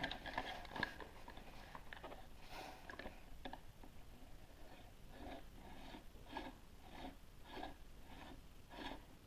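Plastic Play-Doh Diggin' Rigs Cutter toy being handled and rolled across a table: a few light clicks and taps, then, from about halfway through, a soft, even clatter of about two to three strokes a second as its cutter wheel turns over the dough.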